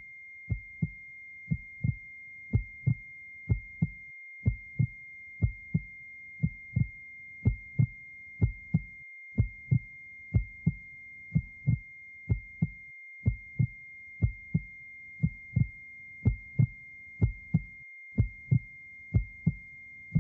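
Cartoon sound effect of sudden deafness: a steady high ringing in the ears over a regular heartbeat thumping, the beats coming in close pairs.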